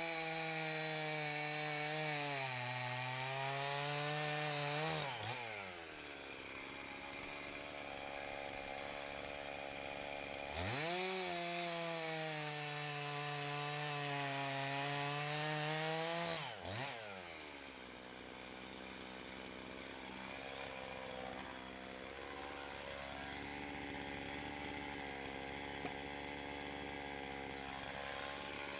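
Gas chainsaw at full throttle bucking a log, dropping back to idle about five seconds in. It revs up for a second cut of about six seconds, then idles unevenly for the rest.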